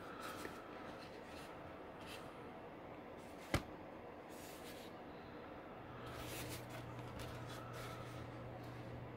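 Faint handling noise of a collectible turtle statue being turned in the hands: soft rustles and small clicks, with one sharp knock about three and a half seconds in.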